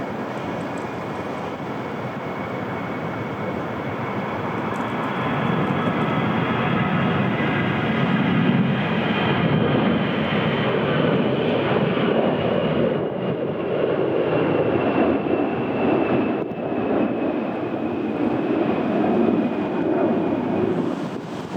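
Jet airliner's engines passing by, growing louder a few seconds in and staying loud, with a high whine that slowly falls in pitch.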